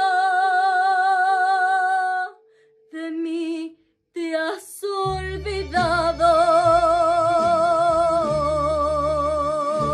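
A woman singing a long held note with vibrato. After a short break she sings a brief phrase and then holds another long vibrato note. Instrumental accompaniment with a low bass comes in about five seconds in.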